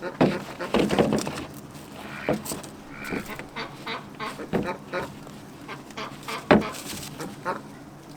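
A staple gun fired several times, irregularly, to fasten foil-backed adhesive flashing onto a chicken coop lid, giving sharp snaps. The loudest comes about six and a half seconds in. Poultry call in between.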